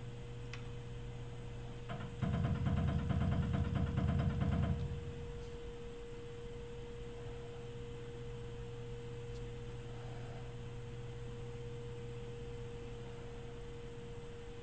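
Steady electrical hum from the CNC mill, with a steady tone over it. About two seconds in, a loud rapid buzzing of the machine starts and runs for about two and a half seconds before stopping.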